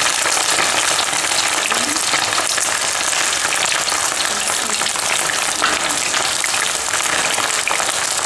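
Breaded chicken wings deep-frying in very hot oil in a stainless steel pot: a steady, dense crackling sizzle as the freshly added pieces bubble hard.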